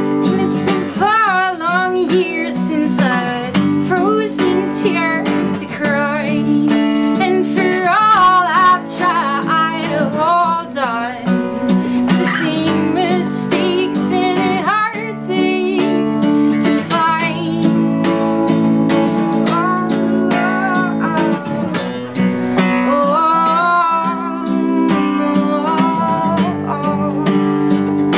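A woman singing with vibrato while strumming an acoustic guitar, the guitar carrying on alone in the short gaps between sung lines.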